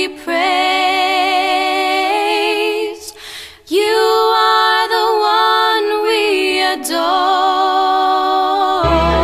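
Background music: a voice singing long held notes with vibrato, with no accompaniment, in a slow worship song. It breaks off briefly about three seconds in, and low instrumental notes come in near the end.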